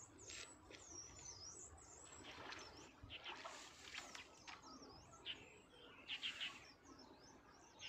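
Faint birdsong: quick, high chirping and twittering calls, with a short louder flurry of calls about six seconds in.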